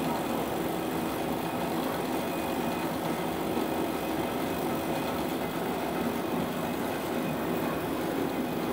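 Multi-spindle thread-covering machine running steadily as it slowly winds metal wire around a fibre core: a continuous, even mechanical running noise with a faint steady hum.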